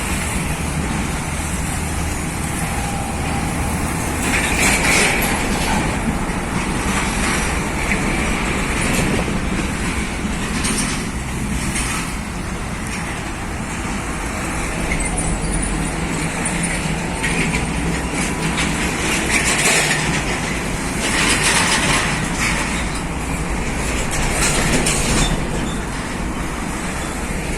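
Heavy diesel trucks hauling heavy equipment running past on the road: a steady low engine drone with road noise, swelling several times into louder hissing passes.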